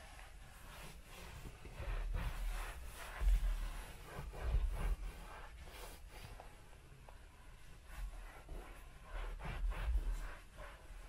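Microfiber towel wiping a leather car seat: runs of quick rubbing strokes with soft low bumps as the cushion is pressed, a couple of seconds in and again near the end.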